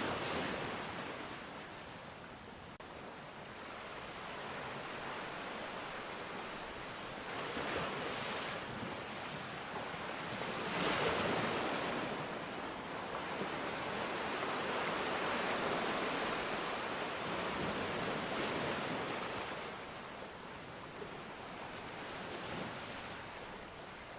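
Sea waves washing in, a steady rush that swells and eases every few seconds, loudest about eleven seconds in.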